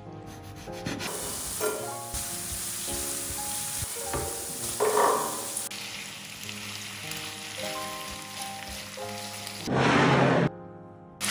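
Chicken pieces with diced tomato and onion sizzling in a frying pan while a spatula stirs them, under background music. Near the end, a short loud burst of noise.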